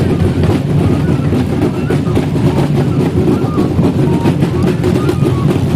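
Several large double-headed hand drums beaten together in a steady rhythm, with a flute playing thin high notes over them and people talking.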